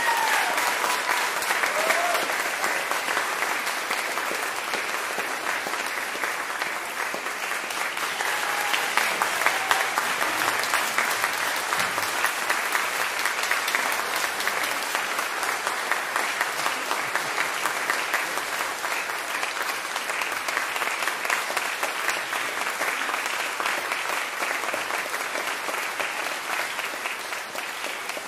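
Audience applauding steadily, a dense patter of many hands clapping, with a few brief shouts rising above it near the start. The applause thins slightly near the end.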